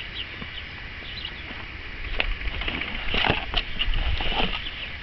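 Steady high chirring of insects in the background. From about two seconds in until past four seconds there is a louder stretch of handling noise: knocks, rustling and a low rumble.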